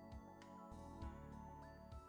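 Quiet background music with a steady beat: low thumps about once a second, light ticks between them, and sustained melodic tones.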